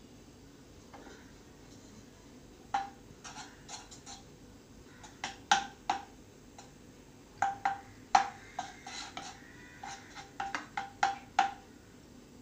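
Wooden spatula tapping and scraping against a kadai while stirring melting butter: a run of irregular knocks starting about three seconds in.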